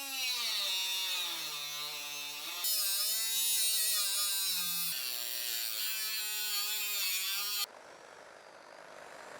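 Electric power tool motor whining in several short edited takes, its pitch sagging as it comes under load and picking up again, with sudden cuts between takes. Near the end it gives way to a quieter steady hiss.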